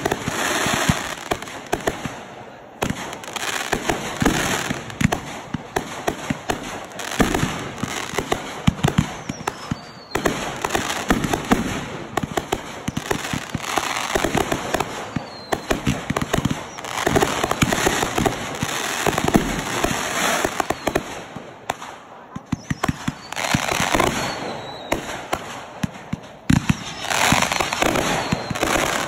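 Consumer aerial fireworks going off in rapid succession: a dense run of launches, bangs and crackling, broken by a few brief lulls.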